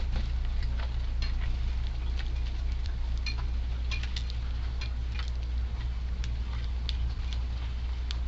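Strong wind buffeting the microphone as a steady low rumble, with many quick, light ticks and taps of sparrows pecking at seed.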